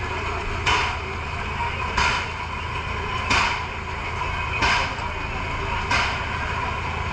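Short hissing bursts repeating about every 1.3 seconds over a steady low engine rumble.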